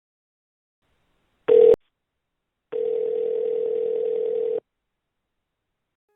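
Telephone line tone through a phone's earpiece: a short steady beep ending in a click, then one steady tone about two seconds long at the same pitch.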